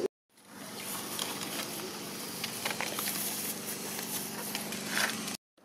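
Outdoor ambience: a steady hiss with scattered light rustles and ticks, like a small macaque's feet on dry leaves and gravel. The sound cuts out briefly just before the end.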